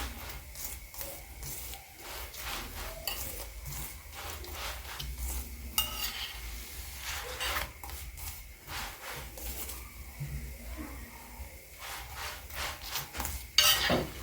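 A kitchen utensil scraping, rubbing and tapping irregularly against a frying pan as a chapati is rotated in hot oil.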